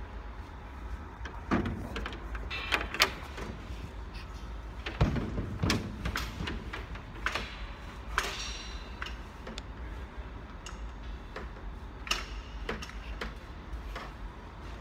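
Scattered knocks and clunks, a few seconds apart, with a short scraping rattle about eight seconds in, over a low steady rumble.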